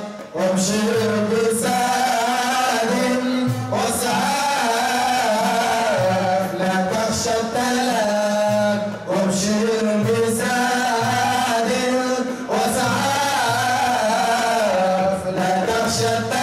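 Qaswida, Islamic devotional song: voices singing a winding melody over a repeating low accompaniment.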